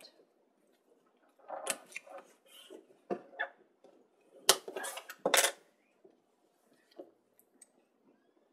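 Hands handling adhesive tape strips on chipboard, with a few short crackling rips as tape is pulled and its backing peeled off; the two loudest come about four and a half and five seconds in.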